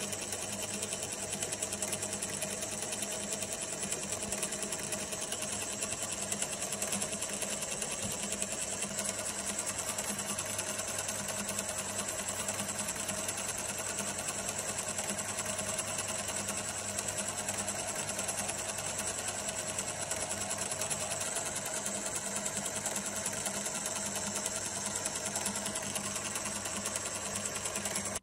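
Watchmaker's lathe running steadily with its small cutter in the collet, the motor and spindle giving an even hum and whine.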